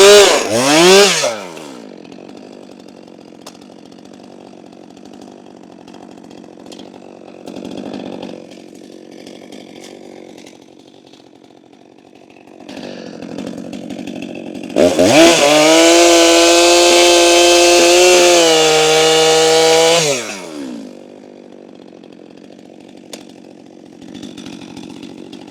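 Stihl MS 462 C two-stroke chainsaw at full throttle, bucking a log. It drops to idle about a second in, runs at full throttle again from about 15 to 20 seconds in for a second cut, then falls back to idle.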